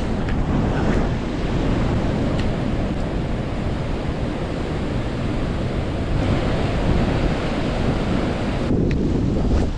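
Strong wind buffeting the microphone: a loud, gusting rumble that rises and falls.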